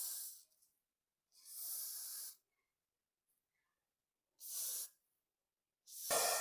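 Three hissing bursts of hair spray, the middle one about a second long, the others shorter. Near the end a hair dryer switches on and runs steadily.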